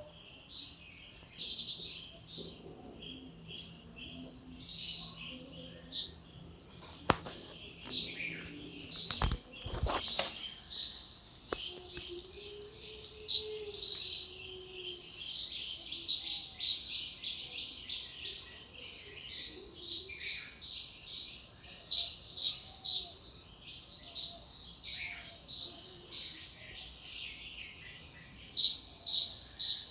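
Outdoor ambience: insects trilling in a steady high-pitched drone, with frequent short bird chirps over it and a few sharp clicks about a third of the way in.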